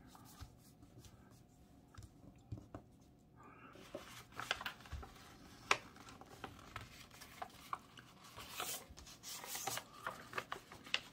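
A sheet of paper being folded by hand: soft rustling and crinkling, with sharp crackles as creases are pressed flat. It is faint at first, with a few light taps, and gets busier and louder about four seconds in.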